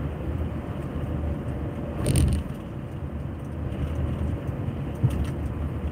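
Steady low road and engine rumble inside a moving Toyota Camry SE's cabin. A short, louder noise rises about two seconds in, and a single light knock comes about five seconds in.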